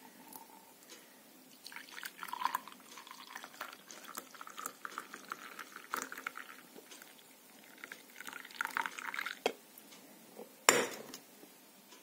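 Hot brewed coffee poured from a glass coffee-maker carafe into a ceramic mug, splashing and trickling in two spells. Near the end comes one sharp knock, the carafe set down on the glass tabletop.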